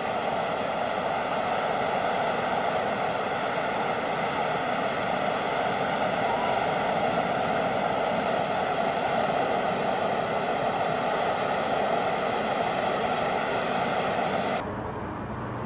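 A steady, unchanging mechanical drone with many evenly spaced overtones, like an engine running at constant speed. It cuts off abruptly near the end.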